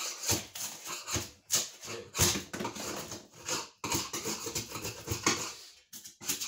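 A metal scraper blade scraping dried Great Stuff expanding spray foam off a plywood floor. It makes an irregular run of short scrapes as the cured foam blobs pop off the surface.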